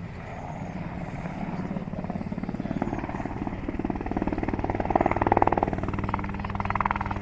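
Helicopter rotor beating in a fast, even rhythm, growing louder to a peak about five seconds in, then easing slightly.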